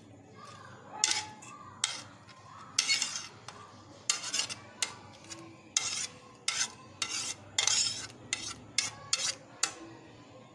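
Metal spoon and knife scraping and tapping sliced onions off a ceramic plate into a steel bowl: a run of irregular clinks and scrapes, some sharp and brief, a few drawn out for half a second.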